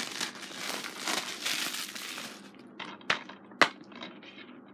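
Plastic wrapping on a DVD case crinkling and rustling for about two and a half seconds, then two sharp clicks, about half a second apart, as the plastic case is snapped open.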